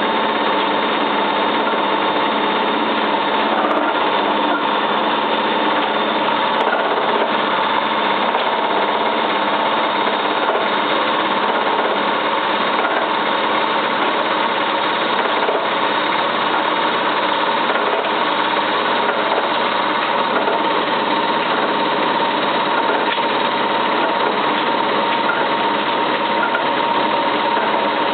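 Cylinda 12002 washing machine in its final spin, running steadily and loudly: a constant whine over a dense noise. The noise sounds like something stuck inside the drum, though the owners found nothing in the inspection pocket.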